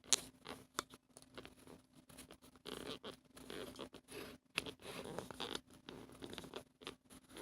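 Faint rustling, crinkling and scattered small clicks and taps from handling a diamond painting kit's packaging and canvas.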